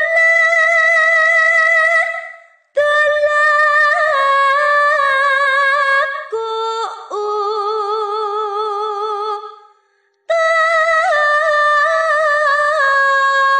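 A woman singing a Javanese sinom tembang solo, holding long, ornamented notes with vibrato. There are three phrases, broken by two short pauses, one about two and a half seconds in and one about ten seconds in. The middle phrase sits lower in pitch.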